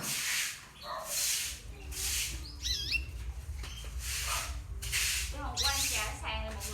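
Canaries chirping, with short up-and-down chirps near the middle and a busier run of calls about five to six seconds in, over a rhythmic swishing noise that comes about once a second.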